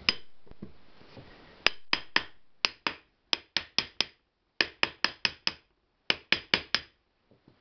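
Hammer taps on the end cap of an electric motor sitting on its housing: about eighteen sharp knocks in four quick runs of four or five, starting about a second and a half in.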